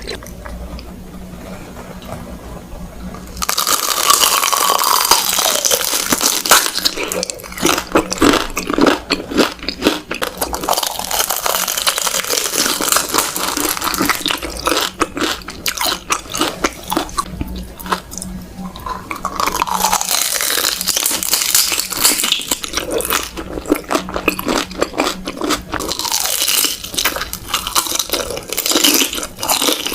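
Close-miked ASMR eating of beef large intestines: biting and chewing. The first few seconds are quieter, then the bites and chews come thick and close.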